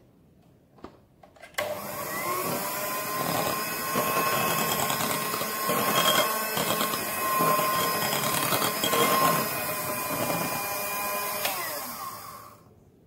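Electric hand mixer switched on about a second and a half in, its motor whirring steadily as the beaters whisk thick sponge-cake batter. The motor winds down and stops near the end.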